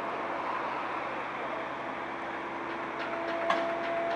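Liebherr mobile crane's diesel engine running steadily while the crane holds a suspended concrete element. A steady whine comes in partway through and strengthens, and a few sharp metallic clicks sound near the end.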